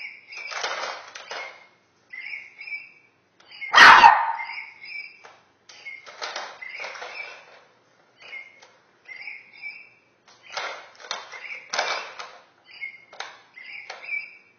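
Plastic balls rattling and rolling around the track of a circular cat toy as a puppy bats and noses at it, in repeated bursts, with short high squeaks among them and one loud knock about four seconds in.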